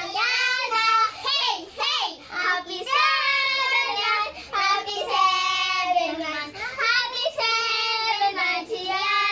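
Children singing a birthday song together in high voices, with long held notes.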